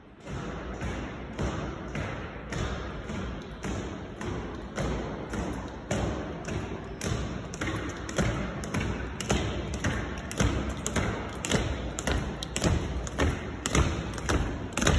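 Marching footsteps of boots on a stone church floor: a steady run of footfalls, about one or two a second, coming closer together toward the end.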